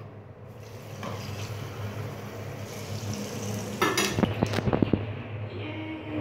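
A quick run of sharp clinks and clatters about four seconds in, over a steady low hum.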